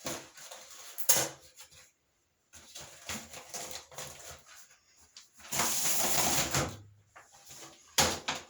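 Handling noises: a sharp knock about a second in, about a second of rustling noise past the middle, and another sharp knock near the end.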